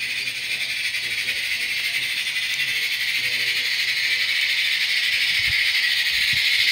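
Live-steam G-gauge Rio Grande Mikado locomotive running under steam: a steady, rapidly pulsing hiss of exhaust chuffs with the rattle of the train on the track, growing louder as it approaches.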